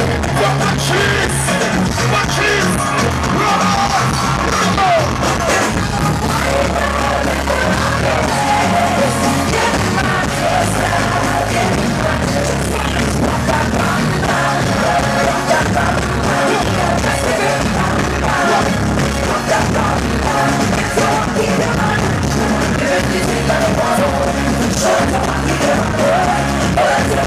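Live soca music played loud over a stage sound system, with singing over a steady beat and shouts from the crowd.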